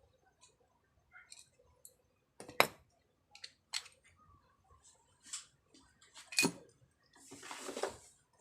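Metal tools and bicycle parts clinking and knocking during repair work: scattered sharp clicks, the loudest about two and a half seconds in and another about six and a half seconds in, then about a second of scraping rustle near the end.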